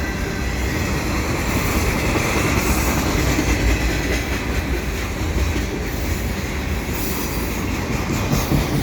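Freight train of autorack cars rolling past close by: a steady rumble of steel wheels on the rails, with a few sharp clanks near the end.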